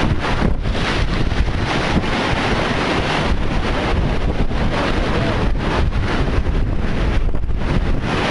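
Heavy storm surf from Hurricane Sandy breaking and washing up the beach, with strong wind buffeting the microphone in a steady low rumble.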